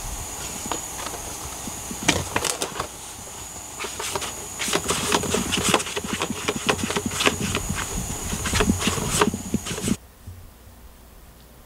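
A cat's paws and body scraping and rustling against a small cardboard box as it climbs in and turns around inside, a rapid run of scratchy clicks and crinkles that stops abruptly near the end.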